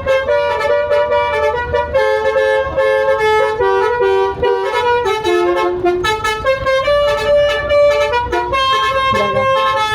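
Bus telolet horn, a set of multi-note horns, playing a tune in quickly changing notes with several tones sounding at once, continuously, heard from inside the bus cabin over a steady low rumble.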